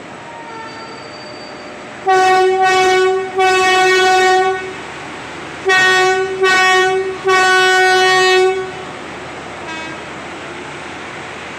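Horn of a WAP7 electric locomotive sounding in two sets of three loud blasts, two short and one longer each time, every blast one steady note. A steady hum fills the gaps between the blasts.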